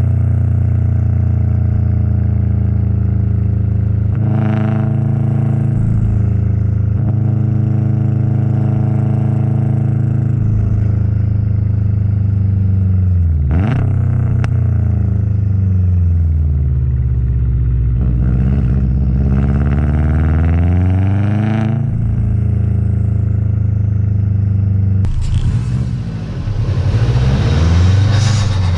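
Subaru WRX STi's turbocharged flat-four engine and exhaust under way, the engine note climbing and dropping again and again as it is revved and shifted. A short sharp sound comes about halfway through, and a rush of hiss rises over the engine near the end.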